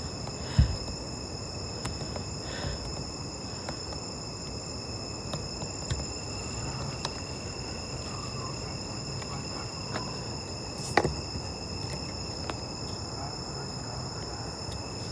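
Night insects chirring steadily, several high-pitched tones held without a break. A short knock comes about half a second in and another around eleven seconds.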